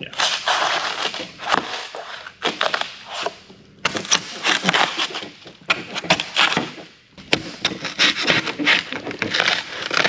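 Flat pry bar digging into and breaking up foam under a cut-out in a fiberglass boat deck: crunching, scraping strokes in quick irregular bursts, with short pauses about a third of the way in and again past the middle.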